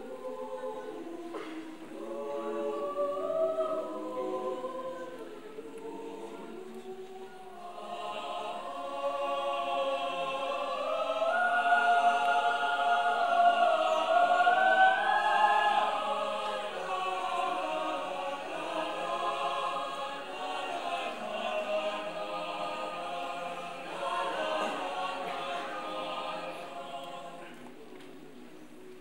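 Mixed choir singing a cappella in sustained chords, swelling to its loudest about halfway through, then easing off and fading near the end.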